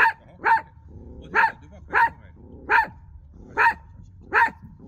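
A dog barking in a steady, repeated series: seven sharp barks, about one every two-thirds of a second.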